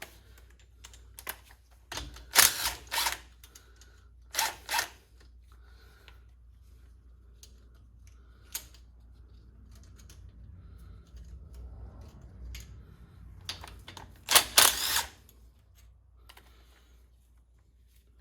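Hand socket wrench with an 11mm socket clicking and small metal bolts and clips clinking as the bearing-cap clip bolts are taken off a Chrysler 8.25 rear axle, in three short groups of clicks about two, four and fourteen seconds in, over a steady low hum.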